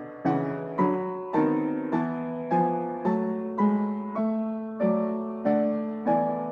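A hymn played on piano in full chords, a new chord struck about every half second and each left to fade.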